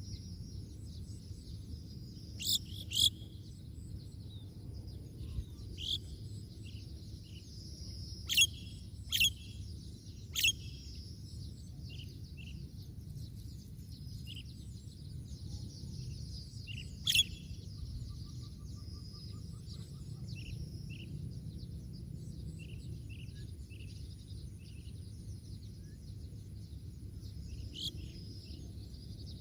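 Birds chirping: steady high twittering with about a dozen sharp, loud calls scattered through it, over a low steady rumble of background noise.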